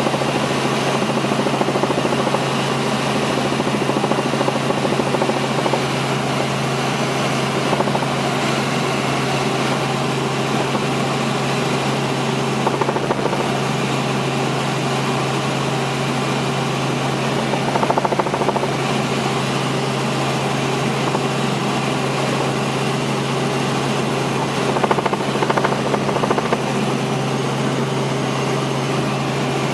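Helicopter in flight, heard from on board: a steady drone of engine and rotor with a constant low hum underneath, holding even throughout.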